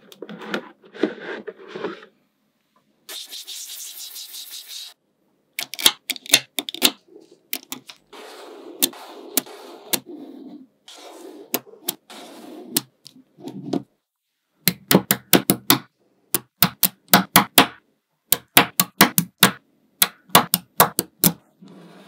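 Small neodymium magnetic balls clicking sharply as they snap together, many clicks in quick runs, with softer scraping and rattling of the balls between them.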